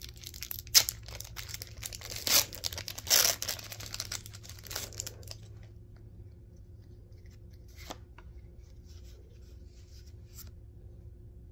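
Foil wrapper of a Pokémon trading-card booster pack being torn open and crinkled, with three loud rips in the first few seconds. After that only faint rustles and clicks as the cards are slid out and handled.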